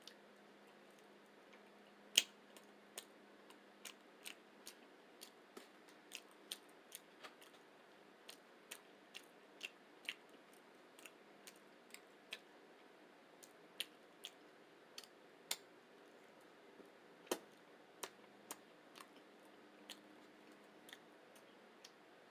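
A person chewing a rice-and-beans burrito, heard as a run of short mouth clicks, about one or two a second, with the loudest about two seconds in.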